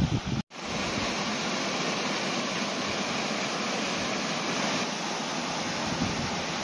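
Steady rush of a small waterfall cascading down a rocky beck. In the first half second wind buffets the microphone, and the sound cuts out for an instant about half a second in.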